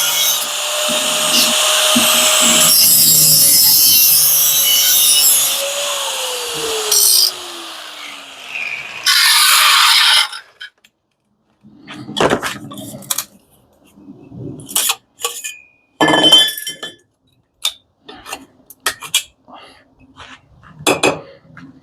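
A grinder working on the machine's metal, loud and hissy over a steady motor tone; about six seconds in the tool is released and its motor note falls as it winds down. After a short further burst, metal pieces clink and knock as they are handled.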